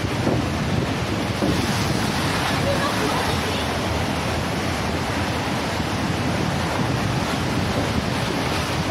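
Steady wind buffeting the microphone over the rush of rough sea water churning around the bridge piers.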